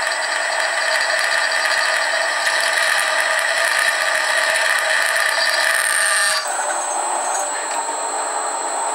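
Twist drill in a homemade drill-press-based milling machine cutting into a steel plate: a steady cutting noise with several held tones. About six seconds in it stops suddenly as the bit comes out of the cut, and the machine's motor runs on more quietly.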